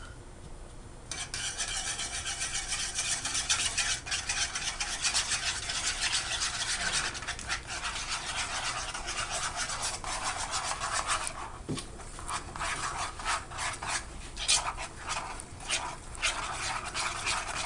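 A spoon stirring and scraping powdered gelatin into water in a ceramic bowl: a fast, scratchy rasping that starts about a second in. It eases around the middle, then comes back as separate strokes.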